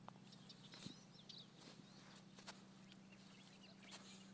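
Near silence: faint outdoor ambience with a few faint bird chirps in the first second or so, over a steady low hum.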